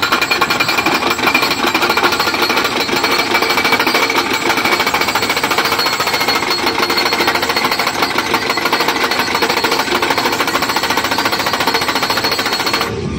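Tractor-mounted crash barrier post driver hammering a steel guardrail post into the ground with rapid, steady blows. It cuts off suddenly near the end.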